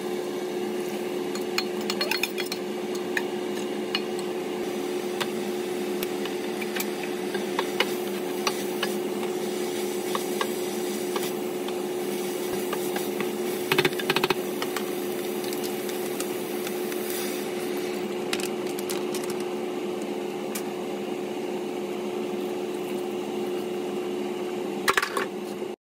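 Beef and seaweed stir-frying in a stainless steel stock pot: a steady sizzle with scattered scrapes and taps of a spoon against the pot, over a steady low hum.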